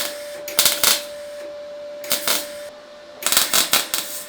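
MIG welder crackling in three short bursts as holes in sheet metal are filled with weld, the last and longest burst near the end, over a steady hum.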